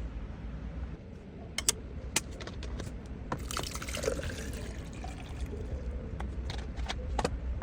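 Liquid pouring and trickling, with several sharp clicks and taps, the pouring densest around the middle.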